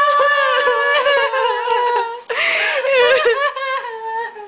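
A high-pitched voice making long, drawn-out wails that waver and slowly fall in pitch, in two long stretches with a short break in the middle.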